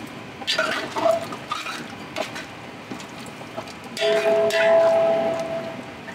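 Metal slotted spoon stirring chicken in a thin masala gravy inside a large aluminium pot, scraping and knocking against the pot's wall. About four seconds in, a long scrape sets the pot ringing with a steady metallic tone for about two seconds.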